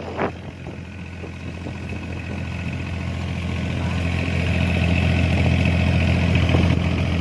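Fishing boat's engine running steadily with a low hum, growing louder over the first few seconds and then holding.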